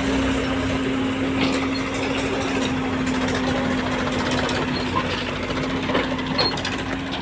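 Tractor diesel engine running steadily at a constant pitch while pulling a loaded trailer up a dirt slope.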